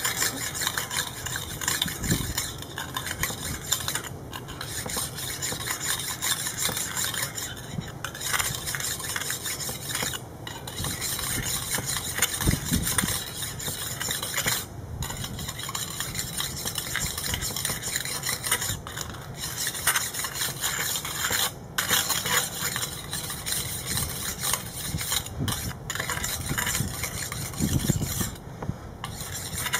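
A pumice stone scrubbed back and forth along the metal bars of a round grill grate, a continuous gritty scraping that stops briefly every few seconds. It is grinding baked-on marinade gunk off the grate.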